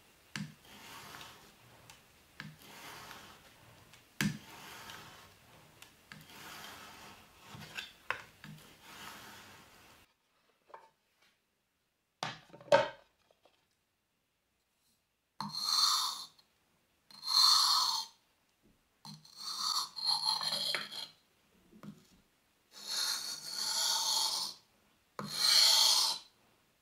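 Steel blade clamped in a wooden honing jig pushed back and forth across a diamond sharpening plate, soft rubbing strokes about once a second. After a pause and a sharp clack, louder, longer rasping strokes follow every second or two.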